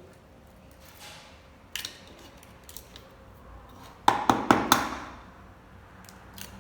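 Eggs being cracked: a single sharp knock near two seconds in, then four quick knocks of eggshell against a hard edge about four seconds in.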